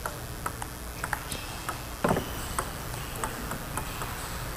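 Table tennis ball clicking sharply off paddles and the table in an irregular series of ticks, with one louder, duller knock about two seconds in.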